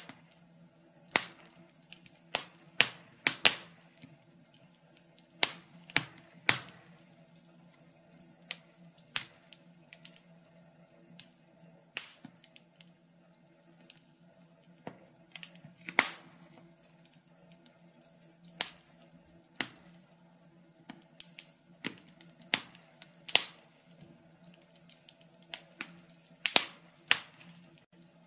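Logs burning in a fireplace, crackling with irregular sharp pops and snaps, a few of them loud, over a faint low hum.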